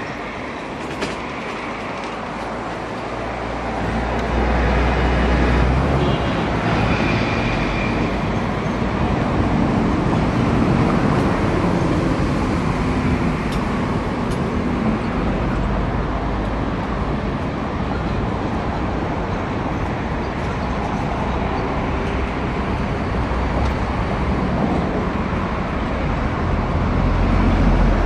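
China Railway DF11G diesel locomotives running with a steady low rumble as the train draws slowly in toward the station. The rumble grows louder about four seconds in and swells again near the end as the locomotives come closer.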